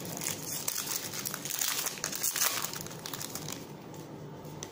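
Iconic Masters booster pack wrapper crinkling and crumpling in the hands as the pack is opened. It is a dense crackle, loudest around the middle, that dies down over the last second.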